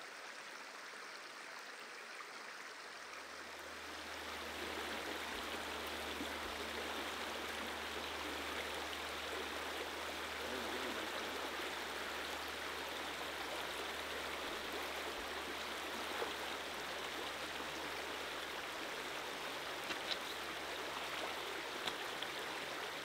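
Small stream running steadily over a shallow riffle: an even rush of water that gets louder about four seconds in.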